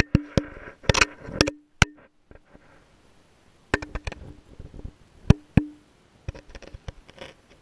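Irregular sharp knocks and clicks on a GoPro's waterproof housing as it hangs on a string underwater, several followed by a short low ring. A cluster comes in the first two seconds, then a quiet gap, then more knocks from about three and a half seconds in.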